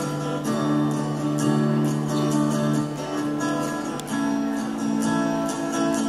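Acoustic guitar strummed, ringing chords.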